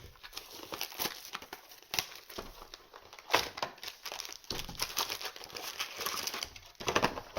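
Plastic trading-card packaging crinkling and tearing while a new booster box is unwrapped and its foil packs handled: an irregular crackle with a few sharper rips.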